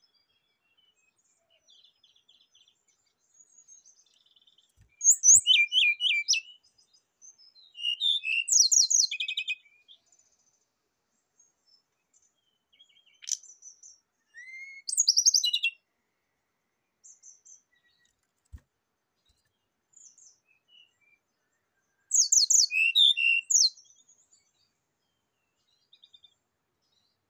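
Brown-chested jungle flycatcher (sikatan rimba dada coklat) singing in short bursts of rapid, high twittering notes. There are four phrases a few seconds apart, with quiet gaps between them.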